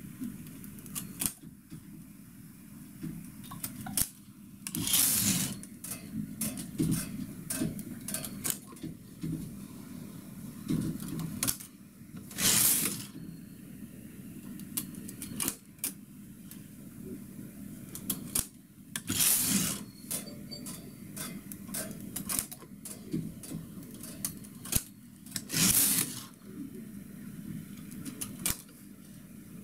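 Single-bed domestic knitting machine: small metal clicks as a hook tool lifts loops onto the needles, and four times, about every six to seven seconds, the carriage slides across the needle bed, each pass lasting about a second, knitting one row.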